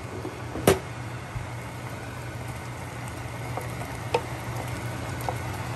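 A pot of squash-and-vegetable soup boiling hard on the stove, a steady bubbling hiss over a low hum. A sharp clink comes about a second in, with a few lighter ticks later.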